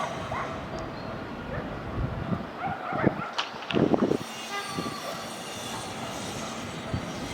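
City ambience: a steady rumble of distant traffic or machinery, with small bird-like chirps and a few short, louder sounds between about two and four seconds in.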